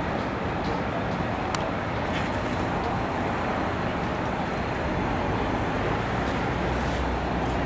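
Steady hum of city road traffic, with a few faint clicks.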